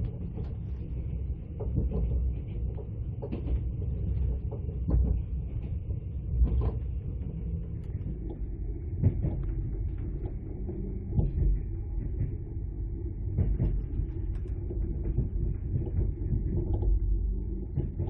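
Mugunghwa-ho passenger train running along the line, heard from inside the carriage: a steady low rumble with irregular knocks and rattles.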